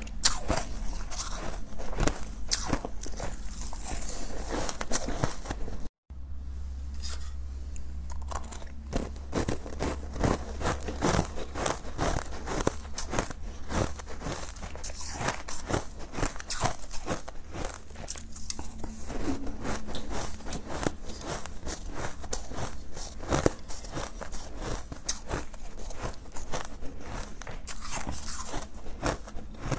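Close-up biting and chewing of balls of packed shaved ice: a dense, continuous run of crisp crunching and crackling. The sound cuts out for an instant about six seconds in, then the crunching goes on.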